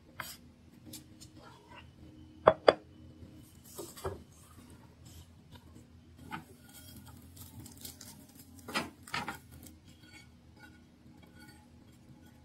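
Kitchen prep sounds: a knife chopping on a wooden cutting board, then chopped vegetables scraped off the board into a glass bowl, with scattered sharp knocks and clicks, the loudest a pair about two and a half seconds in. A faint steady low hum runs underneath.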